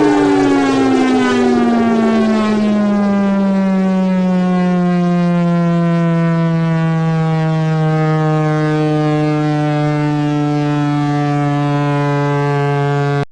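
Chrysler Victory Bell civil defense siren, driven by a gasoline engine and compressors through a rotary chopper, winding down. Its loud tone slides down in pitch over the first few seconds, settles to a low, nearly steady note, and then cuts off suddenly near the end.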